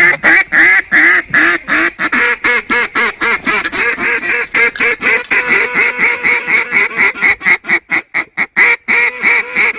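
Mallard duck calls blown in a fast, continuous string of loud quacks, about five a second, calling to ducks circling overhead.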